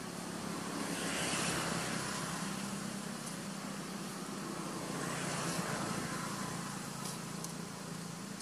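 Steady outdoor background noise with a low steady hum underneath, swelling louder twice, about a second in and again past the middle.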